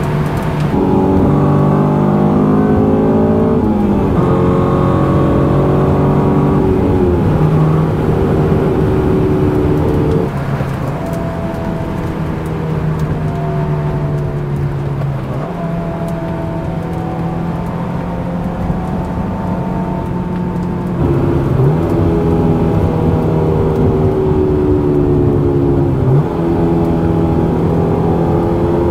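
Honda S2000's 2.2-litre four-cylinder engine pulling hard through the gears, heard from inside the cabin. The pitch climbs and drops back at each upshift, holds steadier for a stretch in the middle, then climbs again.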